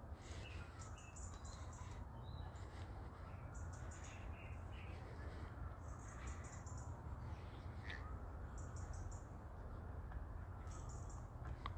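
Small birds chirping in short clusters of high notes every second or two, over a faint low steady rumble.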